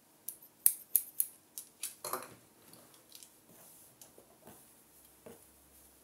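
Hair-cutting scissors snipping through a held section of hair: a quick run of about eight sharp snips in the first two seconds, then fainter, sparser snips.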